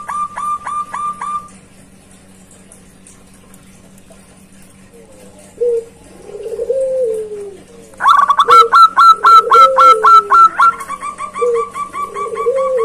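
Zebra doves (perkutut) calling: fast runs of short, clipped repeated notes, alongside lower rising-and-falling coos. After a pause of a few seconds, the coos come in, and the loudest run of fast notes starts suddenly about eight seconds in.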